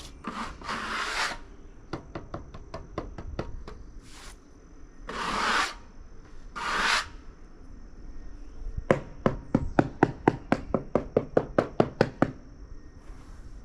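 Scraping and rubbing on a dry, soft cottonwood slab in three short strokes, then a quick run of sharp taps on the wood, about five a second.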